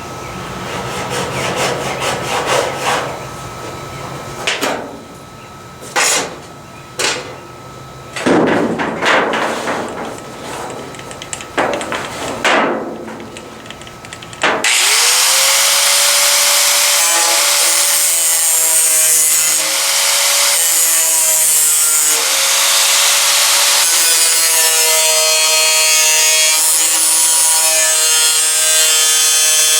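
Irregular scraping and grinding strokes on steel sheet metal. About halfway through, a power tool spins up with a brief rising whine, then runs steadily as it cuts or grinds the metal.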